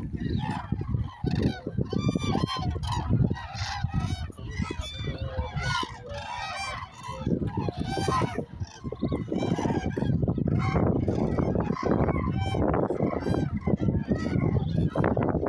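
A large gathered flock of common cranes and geese calling all at once: many overlapping trumpeting and honking calls with no gap. A low rumble lies under the calls and grows stronger from about ten seconds in.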